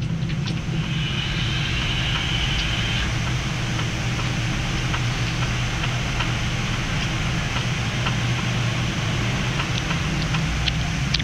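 Steady flight-deck noise of a Boeing 787-9 climbing just after takeoff: a constant low engine drone under airflow hiss, with a faint high whine for about two seconds near the start and a few small ticks.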